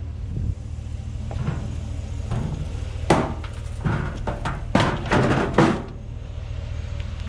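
Clattering knocks and rattles as junk and scrap pieces are handled and shifted in a trash pile, in several bursts from about three seconds in, over a steady low hum.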